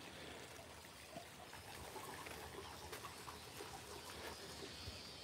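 Faint outdoor ambience: a low, steady hiss with a few soft ticks.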